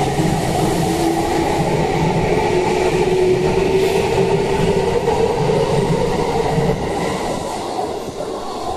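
JR East E233-1000 series electric commuter train pulling out of the station and gathering speed past the platform: a steady motor tone over wheel and rail noise, growing quieter over the last couple of seconds.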